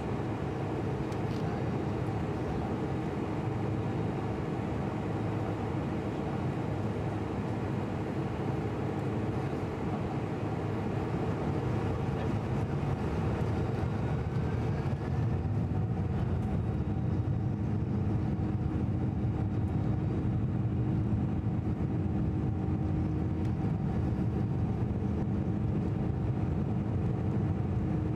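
Cabin noise inside a Boeing 747-400 taxiing: a steady hum and rumble from its four jet engines, with a few steady tones. About halfway through it grows a little louder and heavier and a new steady tone joins.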